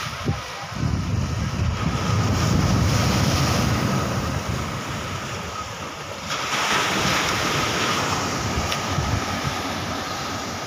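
Sea surf breaking and washing over a boulder sea wall, with wind rumbling on the microphone. A louder wash of breaking surf comes about six seconds in.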